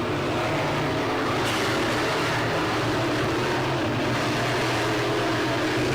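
A field of dirt-track modified race cars running at speed around the track, their engines blending into a steady, overlapping drone.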